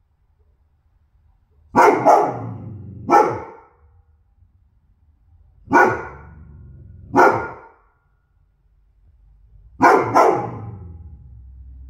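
A goldendoodle barking in three bouts: three barks about two seconds in, two more around six to seven seconds, and a quick pair near the end.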